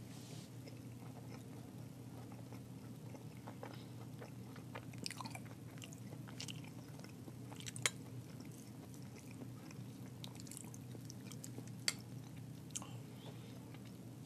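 Close-miked chewing of a spoonful of vegetable stir fry, with soft wet mouth clicks, over a steady low hum. A spoon scoops in the bowl, with sharp clicks about eight and twelve seconds in.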